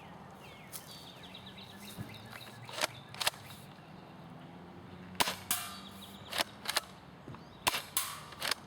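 UTG M183A2 airsoft shotgun being fired repeatedly: sharp shots and clicks, mostly in close pairs, starting about three seconds in.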